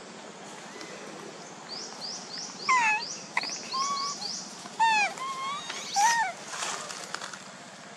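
Baby macaques giving short high calls, several in a row between about three and six and a half seconds in, each falling or arching in pitch; these are the loudest sounds. Behind them a bird gives a quick run of rising chirps, about four a second.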